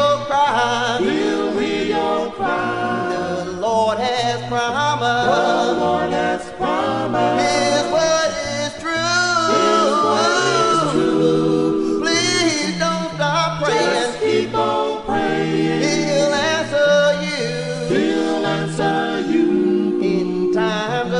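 Gospel singing: voices in harmony over steady low notes, holding long, wavering, ornamented notes.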